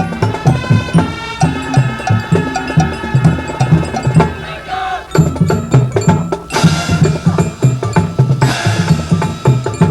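High school marching band playing a Latin jazz arrangement: horns holding sustained chords over a driving drum line of bass drums and wood block. Louder, brighter crashes come in during the second half.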